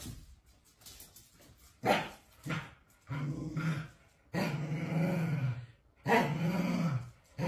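Corgi vocalizing in a string of drawn-out, pitched calls starting about two seconds in; the longest last over a second and rise, then fall in pitch.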